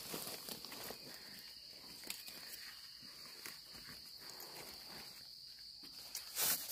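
A steady high-pitched insect drone, with soft crackling of dry leaf litter and crumbly soil as termite mushrooms are pulled up by hand, and a louder rustle near the end.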